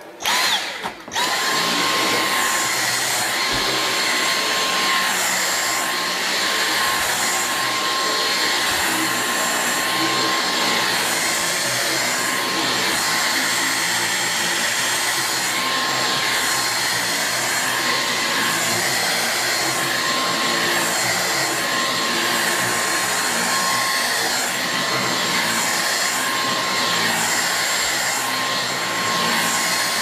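Dyson V6 Absolute cordless stick vacuum switched on, cutting out for a moment and switching on again about a second in. It then runs steadily with a high motor whine while its powerhead brush bar works over carpet.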